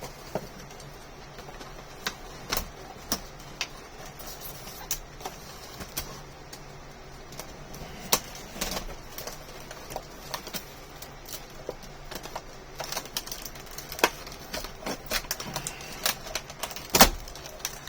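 Irregular clicks, taps and snaps of plastic packaging being cut and pried open with a serrated Stanley knife, with one louder snap near the end.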